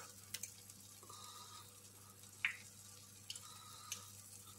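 Faint sizzle of egg-dipped chicken-mince brizoli in waffle wafers frying in hot vegetable oil in a pan, with a few light clicks.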